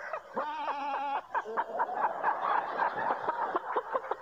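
A man's voice imitating a bleating farm animal: one wavering, goat-like cry about half a second in, lasting under a second, followed by laughter.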